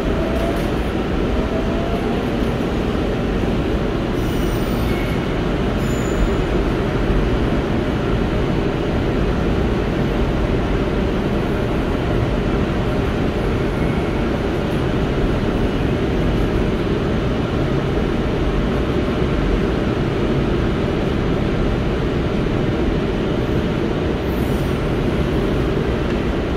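Korail Line 4 electric multiple unit running at speed, heard from inside the passenger car: a steady rumble of wheels on rail and running gear.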